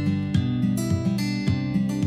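Intro music: a strummed acoustic guitar playing chords on a steady beat, a strum roughly every half second.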